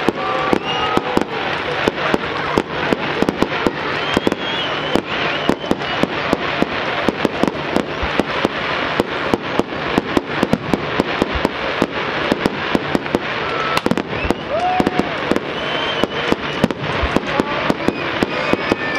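Fireworks display in a continuous barrage: aerial shells and firecrackers going off several bangs a second without a break.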